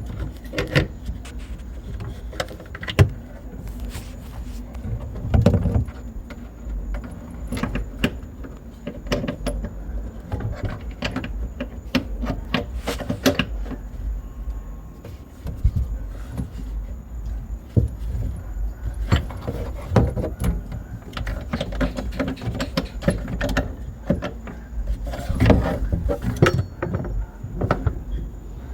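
Irregular metallic clinks, clicks and knocks of plumbing fittings and hand tools being handled and worked under a sink while a faucet's supply hose and mounting nuts are fitted, with clusters of louder knocks at intervals.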